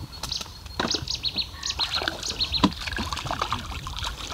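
A small bird singing a quick run of short, high repeated notes, with a few sharp knocks and splashy noise around it.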